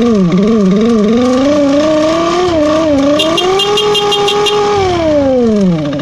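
Motor scooter engine revved with the throttle: the pitch jumps up and wobbles in a few quick blips, climbs to a held higher speed, then slides back down to idle near the end.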